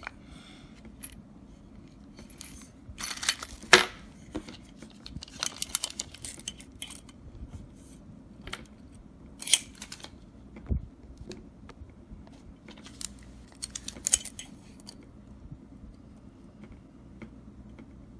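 Scattered clicks and light metallic clatter from a Master Lock 5401D combination lock box being handled, in several short clusters. The loudest is a sharp click a little under four seconds in.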